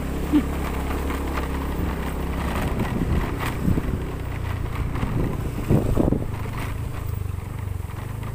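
Vehicle engine running steadily as it drives along, with wind buffeting the microphone and a few short knocks partway through.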